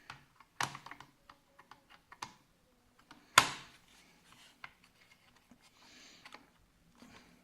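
Handling of an Asus S56C laptop: scattered light clicks and taps, with a sharper knock under a second in and a louder one about three and a half seconds in.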